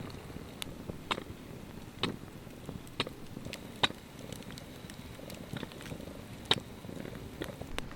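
Wood campfire crackling, with irregular sharp pops about once or twice a second over a low steady rumble.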